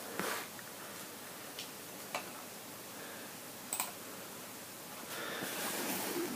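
A few faint, scattered clicks of a smartphone's side buttons being pressed as the phone is handled, then a soft rustle of handling near the end.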